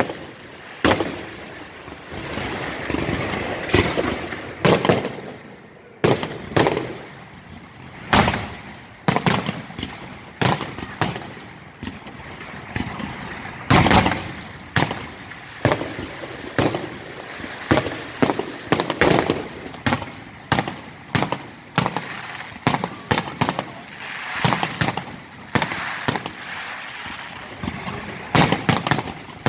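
Fireworks display: aerial shells bursting one after another, sharp bangs roughly one to two a second with a crackle between them, the loudest bang about halfway through.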